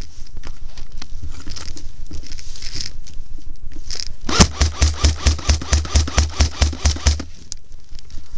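Dry grass and brush rustling and scraping as the camera pushes through it. Just past the middle comes a fast, even run of about fourteen sharp knocks with a deep thump, about five a second, lasting roughly three seconds.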